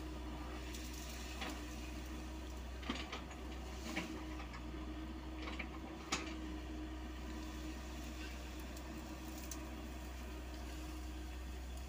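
Komatsu PC78UU mini excavator's diesel engine running steadily as it digs into a hillside, with a few sharp knocks in the first half.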